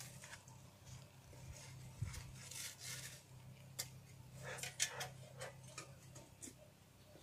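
Light clicks and knocks of wooden hive parts being handled at an open beehive, coming in a quick run in the second half, over a low steady hum.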